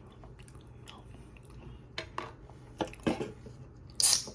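Cutlery scraping and tapping in a frozen-meal tray while stirring mashed potatoes: quiet at first, then a handful of short sharp clicks and scrapes from about two seconds in, the loudest a brief scrape about four seconds in.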